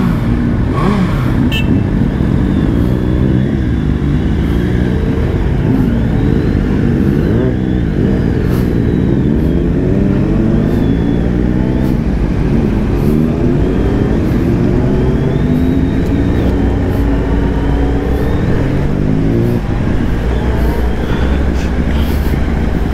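Motorcycle engine under way, its pitch repeatedly climbing and dropping back as the bike pulls off and accelerates through the gears.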